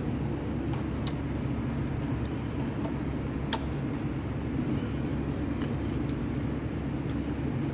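A steady low rumble with a hum, like a running motor, and one sharp click about three and a half seconds in.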